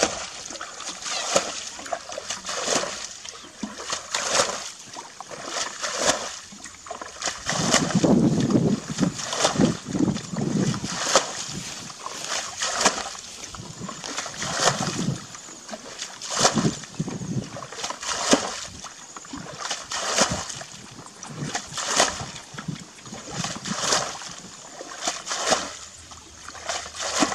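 Shallow muddy water splashing and sloshing again and again as a plastic basket is scooped and pushed through it by hand, a splash every second or two.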